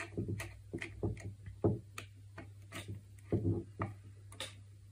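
Scattered small clicks and taps of fingers working a wire into a screw terminal inside the plastic cup of a rain gauge.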